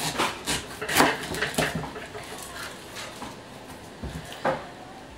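Knife cutting the rind off a pineapple on a wooden cutting board: a quick run of crunching cuts and blade taps in the first two seconds, then a few more near the end.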